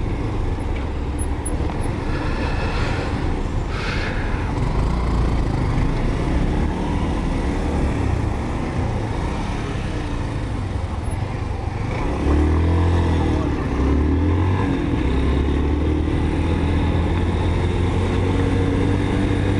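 Motorcycle engine running while riding on the road, with wind noise; from about twelve seconds in the engine note rises and falls as the throttle changes.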